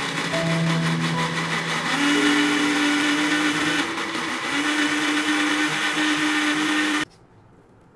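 Countertop blender running at full speed, pureeing strawberries with milk and jam into a thick juice; it stops abruptly about seven seconds in.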